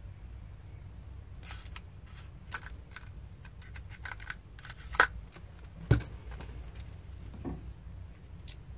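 A set of steel stamping punches clinking and rattling in its case as it is handled, a scatter of sharp metallic clicks, with a heavier knock about six seconds in as it is set down on the workbench.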